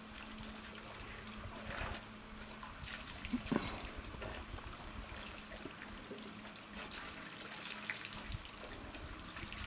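Water trickling and splashing as African elephants drink, trunks dipping into the water and lifting it out, with scattered small splashes and one louder sudden sound about three and a half seconds in.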